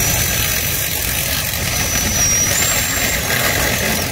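DeWalt DCD780 20V cordless drill running under load, boring through the rusted sheet-metal motor mount where the old studs broke off. Its motor whine steps up in pitch about two and a half seconds in.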